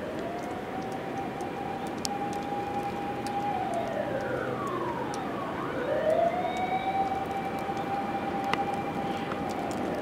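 Overhead wires whistling in a blizzard wind: a siren-like tone that rises and holds, sags low near the middle while a second higher tone slides down across it, then climbs back and holds, over a steady rush of wind with scattered faint ticks.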